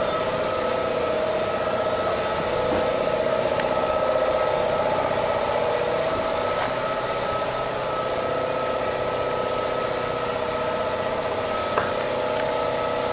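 A machine running steadily in a workshop, a constant droning hum with a higher steady whine above it. A few faint clicks and knocks come near the end.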